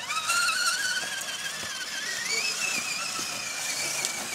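Electric motor and geartrain of a radio-controlled off-road truck whining under throttle, the pitch jumping up at the start and rising again about two seconds in before holding steady.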